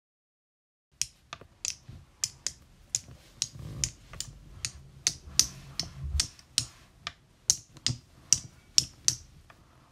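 Lego bricks clicking into place: a run of sharp, irregular plastic clicks, two or three a second, starting about a second in and stopping shortly before the end.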